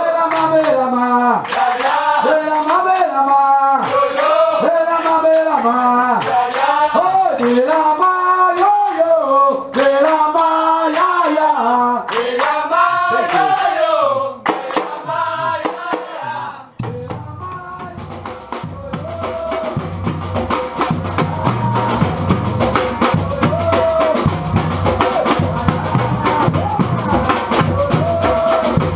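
Singing over steady hand clapping, which changes abruptly about seventeen seconds in to a batucada percussion ensemble playing a fast, dense rhythm with deep bass drums.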